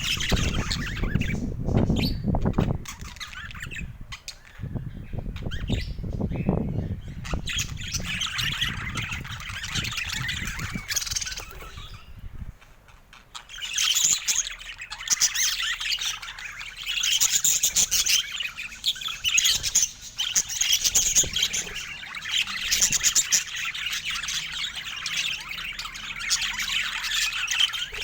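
Budgerigars chattering, with warbling chirps and squawks that go on almost without a break. Through roughly the first twelve seconds a low rumble runs underneath the calls.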